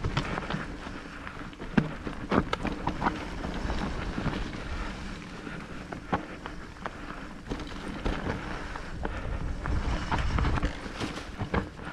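Wind rushing over the microphone of an electric mountain bike riding a rough trail. Sharp knocks and clicks come at uneven times as the bike jolts over the ground.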